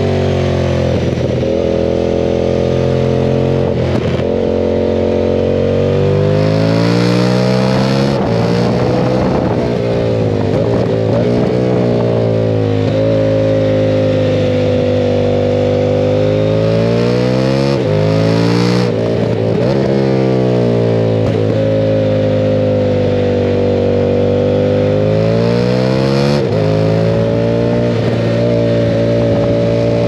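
2006 KTM 990 Super Duke's V-twin engine running hard, its pitch rising and falling with the throttle and breaking sharply several times at gear changes.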